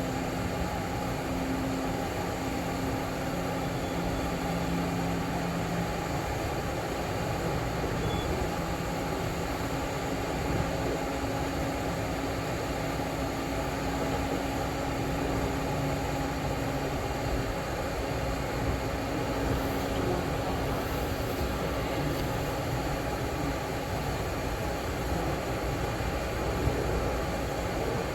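Building HVAC equipment, not yet soundproofed, running: a steady rushing noise with a low hum under it.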